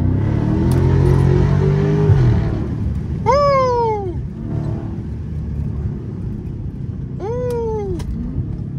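Dodge Charger SRT 392's 6.4-litre HEMI V8 accelerating hard, its exhaust note climbing for about two seconds before it drops sharply at an upshift. Then come two quick rev blips on downshifts, about three and seven seconds in, each rising briefly and then falling.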